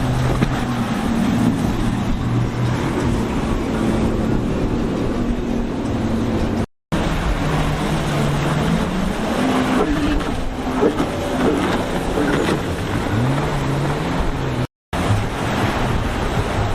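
Motorboat engines running, their pitch rising and falling as the boats throttle, over a rush of wind and water; the sound cuts out briefly twice.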